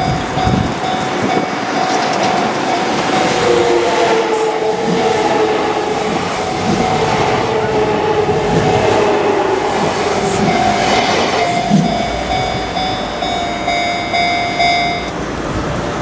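A Kintetsu Minami Osaka Line train running over a level crossing while the crossing's warning bell rings steadily. The bell stops about a second before the end.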